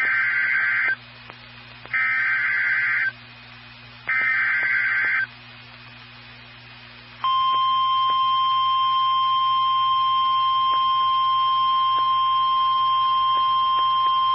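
NOAA Weather Radio Emergency Alert System tones: three bursts of about a second each of the SAME digital header's screeching data, a second or so apart, then after a short pause the steady, single-pitch 1050 Hz warning alarm tone begins about seven seconds in and holds.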